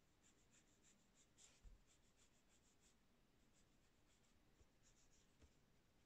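Faint, soft strokes of a watercolour brush on paper, about four a second with a short pause near the middle, and a dull bump about a second and a half in.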